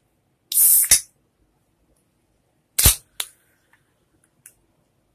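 A sparkling-water can being cracked open: a short fizzing hiss ending in a sharp crack of the pull tab about a second in, then another sharp crack and a smaller click near the middle.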